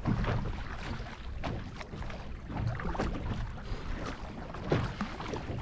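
Kayak paddle strokes splashing in choppy sea water, with wind rumbling on the microphone.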